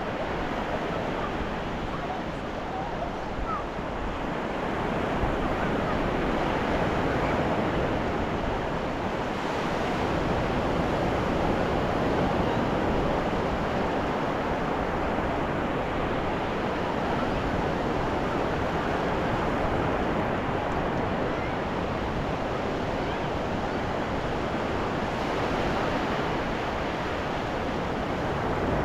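Ocean waves breaking and washing on a beach, a steady rush of surf that swells and eases slowly.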